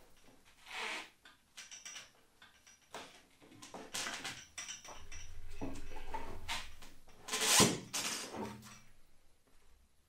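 Handling noises from fitting parts of a large composite RC jet together by hand: scattered knocks, rubs and rustles, the loudest a sharp knock about three quarters of the way through.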